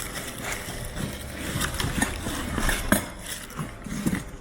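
Packaging rustling with irregular light clicks and knocks as a new set of shock absorbers is unwrapped and handled.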